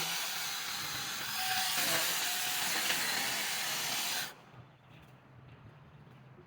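Cordless mini chainsaw running and cutting through a dead tree branch, a steady loud rushing buzz that stops abruptly about four seconds in, leaving only faint ticks.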